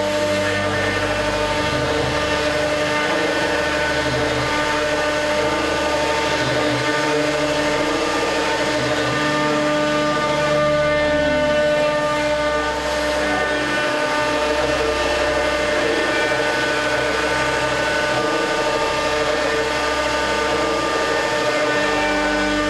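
CNC router spindle running steadily, its round-nosed cutter carving a wooden board, with a set of steady whining tones. A low hum shifts pitch every few seconds as the machine's axes change speed or direction.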